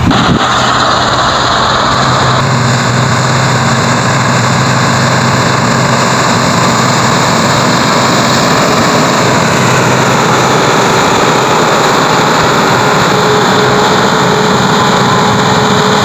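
Combine harvester running steadily while cutting wheat: its diesel engine and threshing machinery make one continuous, even drone with a low hum.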